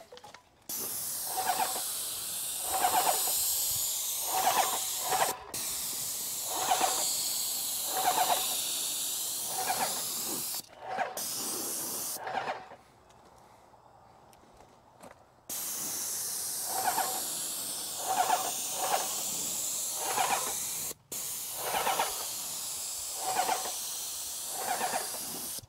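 Graco Magnum ProX17 airless spray gun spraying wood stain: a steady high hiss in long passes, with a regular pulsing every second or so underneath. The trigger is let go about ten seconds in; after a short burst and a pause of about three seconds, spraying resumes, broken off once more briefly near the end.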